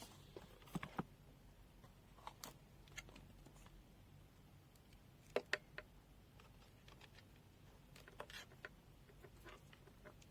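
Faint, scattered small clicks and taps, a few at a time, from handling the multimeter and its test leads; otherwise near silence.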